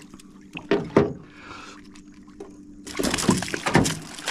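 Water splashing and sloshing beside a boat hull, louder from about three seconds in, with a couple of knocks on the boat about a second in. A low steady hum runs underneath.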